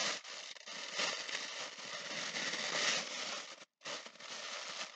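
Tissue paper rustling and crinkling as hands pull it open to unwrap a gift, with a short break a little before the end.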